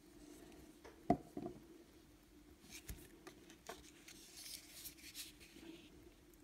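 Faint handling noise of a small plastic model locomotive and its coupler bracket being turned and fitted in the fingers: one sharp click about a second in, then light clicks and rubbing.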